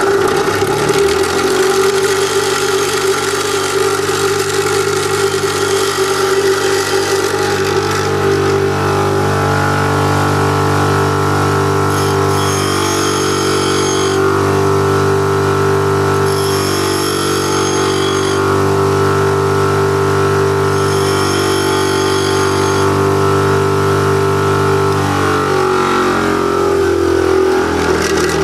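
Bench grinder's electric motor and wheel running steadily with a hum. A drill bit is held against the grinding wheel to sharpen it, and three times for about two seconds a higher-pitched grinding sound joins in.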